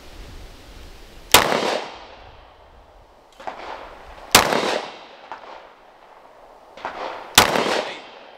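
Three 9mm pistol shots from a Glock 43X, spaced about three seconds apart, each a sharp crack with a short echoing tail, with fainter knocks in between.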